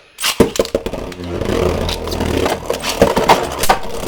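Beyblade Burst spinning tops, one of them 3D-printed, launched into a stadium about a quarter second in, then spinning with a steady hum while they scrape and clack against each other. Several sharp hits come near the end.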